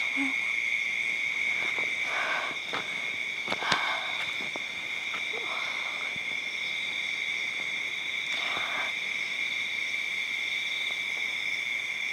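Steady chorus of night insects such as crickets, trilling in two constant high pitches. Over it come a few soft, brief hissing noises and a single sharp click about four seconds in.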